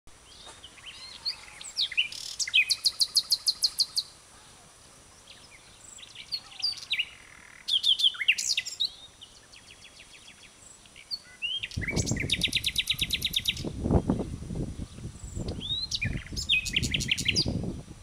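Common nightingale singing: separate phrases of whistles and fast runs of rapid repeated notes, with short pauses between them. From about twelve seconds in, a low pulsing rumble lies under the song.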